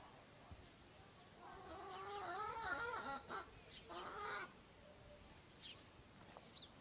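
A drawn-out, wavering animal call lasting about two seconds, followed by a shorter one about a second later.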